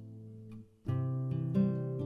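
Background music on acoustic guitar: a chord rings and fades, breaks off briefly just under a second in, then a new chord is strummed and plucked notes follow.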